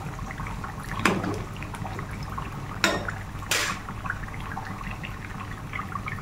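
Mathri rolls of potato and wheat-flour dough deep-frying in hot oil on a low flame: a steady sizzle with fine crackling. A few brief, louder knocks come about a second in and around three seconds in.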